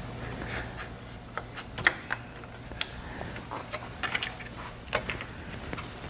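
Scattered small clicks and light rubbing as plastic slider and arm pieces are pushed into the metal track of a BMW E36 sunroof cassette, over a low steady hum.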